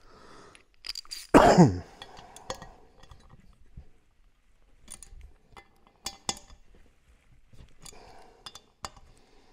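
A short, loud cough about a second and a half in. Then a few light, sharp metallic clinks of tools and bolts as the brake rotor bolts on an aluminium wheel hub are tightened by hand.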